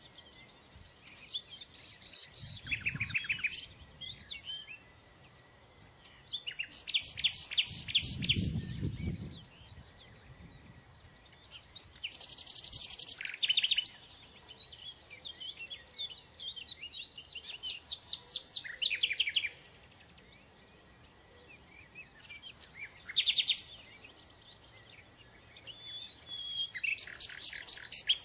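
A songbird singing short phrases of fast, repeated, high notes, with a pause of a few seconds between phrases. A brief low rumble comes about a third of the way in.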